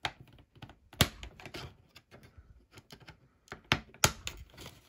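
Plastic clips of a Verbatim SATA SSD's casing clicking and snapping as the case is pried apart with a plastic pry tool. A few sharp snaps stand out (one at the start, one about a second in, two close together near the end) among lighter ticks and scrapes.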